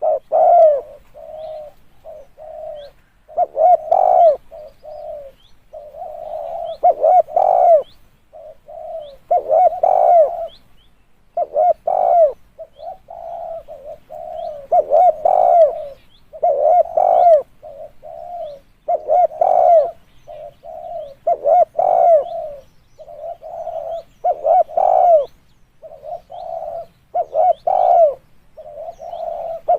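Spotted dove cooing over and over in low, rounded phrases, a louder coo about every two seconds with softer notes between.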